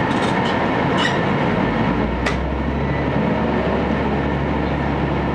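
Inside an Aizu Railway AT700 diesel railcar moving slowly along a station platform: steady running noise of the car, with a few sharp clicks in the first couple of seconds. A low steady engine drone sets in about a second and a half in.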